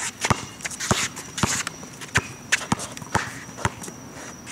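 A basketball bouncing on an outdoor court in an irregular string of thuds as a player dribbles through a trick move, with sneakers scuffing between the bounces.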